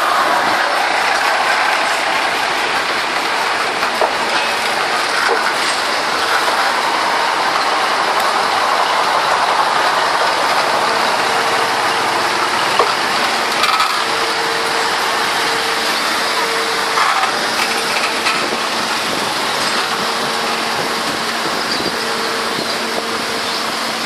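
Converted KRD diesel railcar set rolling slowly past at close range: a steady mechanical noise of its engines and running gear, with a few scattered clicks. From about ten seconds in, a faint steady hum joins in and comes and goes.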